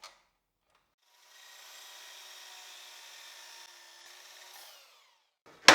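A saw cutting a cedar board, heard faintly as an even rasping noise for about three and a half seconds. Near the end there is a single sharp knock.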